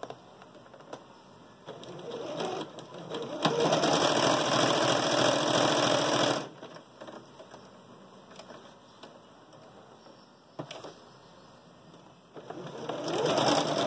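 Domestic electric sewing machine stitching a seam through fabric. It picks up speed over a second or so, runs for about three seconds and stops. After a pause broken by a single click, it starts stitching again near the end.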